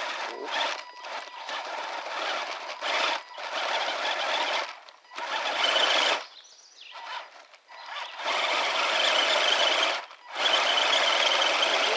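1/10-scale Axial SCX10 Deadbolt crawler's 45-turn brushed electric motor and geared drivetrain whining under heavy load in repeated throttle bursts: several short pulls, then two longer ones near the end with a steady high whine. It is straining to tow two Traxxas Summits held back in low gear with locked diffs, with poor traction.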